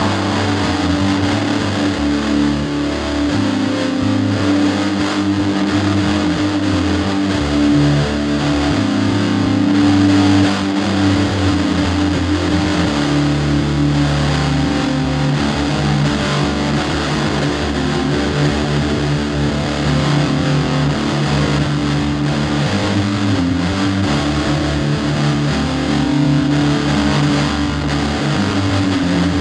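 Music with distorted electric guitar over long held low notes.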